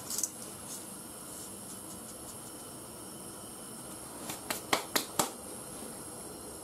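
Pot of water at the boil with dry spaghetti just dropped in, giving a steady low hiss. About four and a half seconds in comes a quick run of four or five sharp light clicks.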